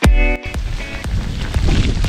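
A beat of electronic dance music that cuts off about half a second in, giving way to rough, rumbling wind on the microphone as a mountain bike rides the trail.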